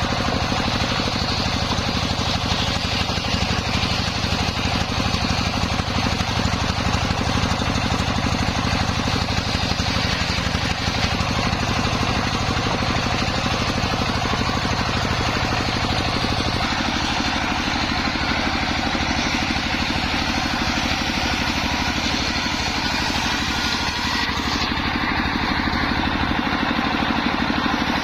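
Homemade engine-driven circular saw running steadily at a sawmill bench, with its blade hissing through the wood; the tone shifts about two-thirds of the way through, and the high hiss drops away near the end.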